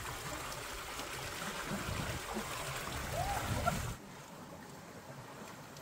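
Shallow rocky stream running and trickling, louder for about four seconds and then dropping suddenly to a quieter steady flow.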